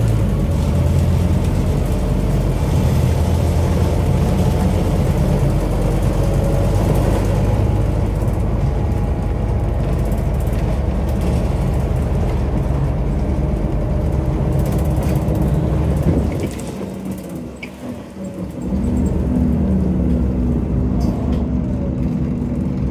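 Scania OmniCity bus's Scania DC09 9-litre five-cylinder diesel engine, heard from inside the passenger saloon, running under load. It drops away for about two seconds after about 16 s, then picks up again with rising pitch.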